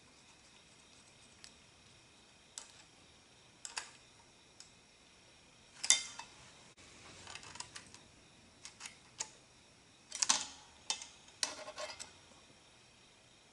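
Small metal parts of a carburetor throttle linkage clicking and clinking as the rod is fitted onto the throttle levers by hand and with a small tool. The clicks are scattered, with short rattling clusters about six seconds in and again from about ten to twelve seconds.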